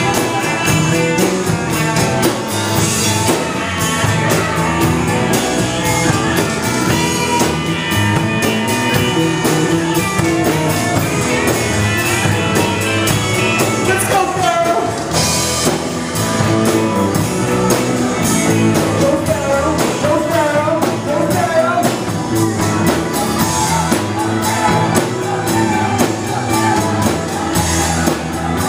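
Live rock band playing an upbeat song on keyboard and drum kit, with a singer's voice carried over the music.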